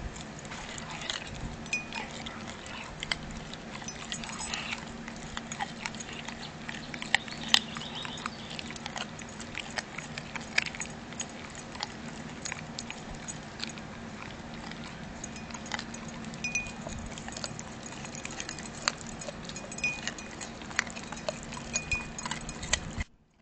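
Puppy, a young American Bully, gnawing and chewing a raw chicken leg held to its mouth: a continual run of wet crunches and sharp tooth clicks over a steady low hum. It cuts off abruptly near the end.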